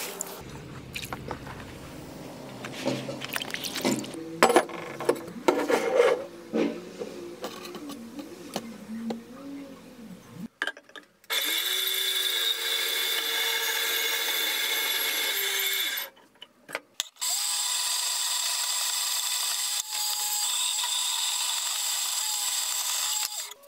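Band saw cutting through cast aluminium, running in two steady cuts of about five and six seconds with a short break between, starting about eleven seconds in. Before it, quieter irregular knocks and handling as the casting is dunked in a tub of water.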